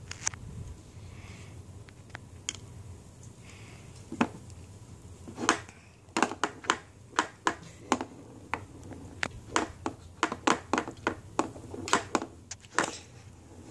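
Small hard balls of a tabletop mini pool table clicking and knocking against each other and the table: a string of sharp, irregular clicks, sometimes several a second, starting about four seconds in.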